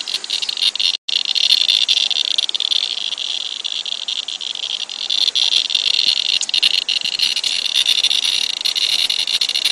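Inspector handheld radiation meter clicking in a fast, dense stream of counts that blurs into a steady crackle, with a brief break about a second in. The rate is high: the meter is reading over 6 µSv/h from a dried wipe of flood water held to it.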